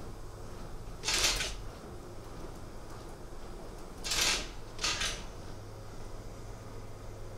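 Three short rustling, scuffing noises as a large plush mascot costume is shuffled into place at a microphone podium, over a steady low hum.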